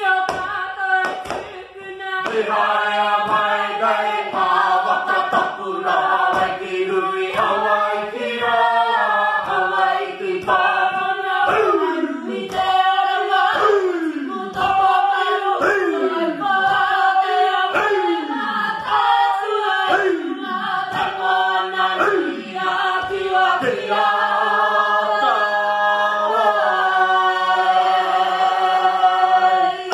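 Māori group singing (a waiata) in men's and women's voices together, with the light rhythmic taps of poi balls striking the performers' hands and bodies as percussion. In the middle the voices slide downward in pitch again and again, about once a second.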